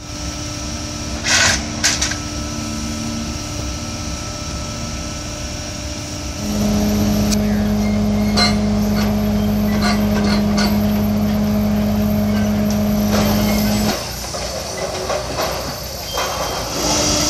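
Heavy machinery running steadily: a firewood processor with a 100 hp electric motor driving its hydraulic pump, with a skid-steer loader working beside it. A louder steady hum sets in about six seconds in and drops back about fourteen seconds in, with two sharp knocks near the start and a few clanks in the middle.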